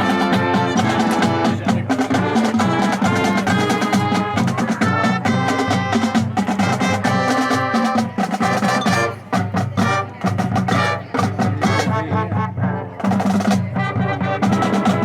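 High school marching band playing its halftime show: brass carrying the melody over marching drums and percussion, loud and steady, with a few short staccato breaks in the second half.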